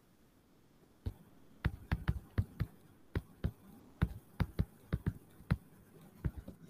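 A string of sharp, irregular taps from a stylus on a tablet screen while handwriting, starting about a second in and going on until near the end.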